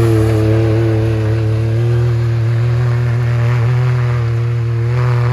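Can-Am Maverick X3 side-by-side's turbocharged three-cylinder engine running hard at steady revs, its pitch barely wavering, as the machine slides in circles on snow.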